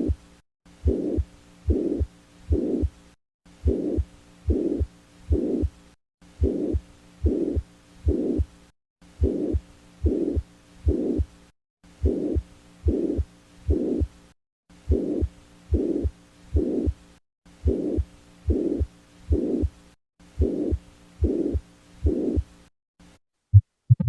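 Heart sounds through a stethoscope with a mid-systolic murmur: a steady heartbeat, each beat carrying a short murmur between the first and second heart sounds. There is a brief break about every three seconds.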